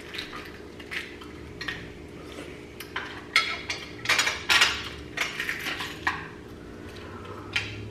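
Spoons clinking and tapping against balut eggshells and dishes, with a cluster of sharp clinks about three to five seconds in, over a faint steady hum.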